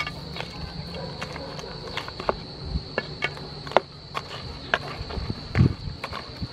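Wooden spatula stirring whole river prawns in sauce in a metal pan: irregular knocks and scrapes of the spatula and shells against the pan, about one or two a second. A steady high insect drone runs underneath.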